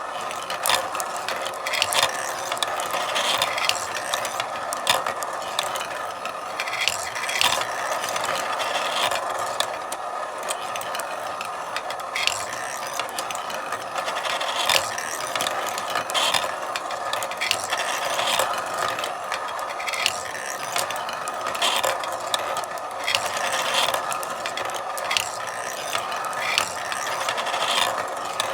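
Marbles running through a marble run: a continuous rolling rattle along the tracks, with frequent irregular clicks and clacks as marbles strike each other and the track pieces.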